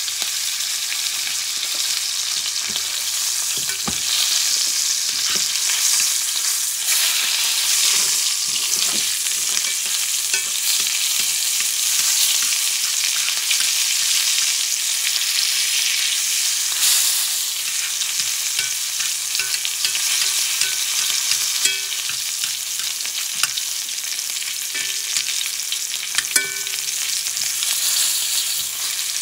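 Ostrich steak sizzling in sunflower oil and butter in a small cast-iron skillet while it is basted with a spoon: a steady frying hiss with a few light clicks of the spoon against the pan.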